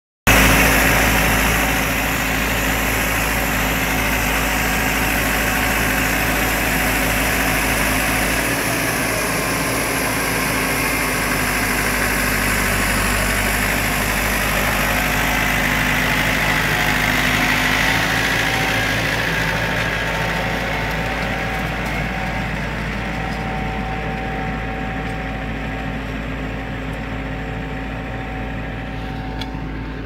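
Massey Ferguson 4245 tractor's four-cylinder diesel engine running steadily under load as it pulls a three-furrow Kverneland plough, growing fainter over the last third.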